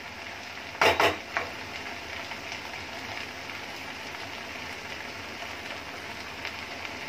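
Chowmein noodles sizzling steadily as they fry in a pan on a gas stove. About a second in, a wooden spatula knocks a couple of times against the pan.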